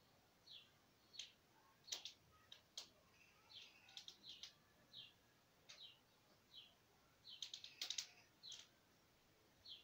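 Small birds chirping faintly: short, high, repeated chirps with a few sharp clicks among them, busiest about two seconds in and again near the end.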